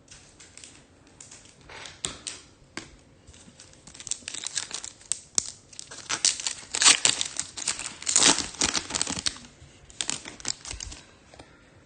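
A foil trading-card pack wrapper being torn open and crinkled by hand, in irregular crackling bursts that grow busiest from about four seconds in.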